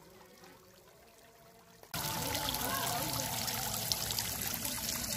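Thin water jets of a small homemade fountain splashing and trickling into a shallow pool. The sound is faint at first, then much louder from about two seconds in.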